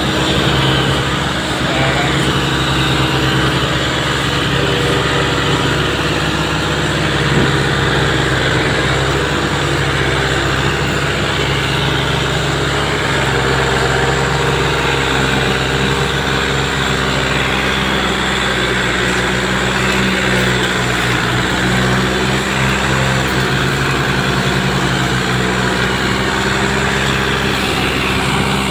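Diesel engines of a John Deere 5045 tractor and a New Holland 3630 tractor running hard under a heavy sugarcane load, with a loud, steady, unchanging engine note.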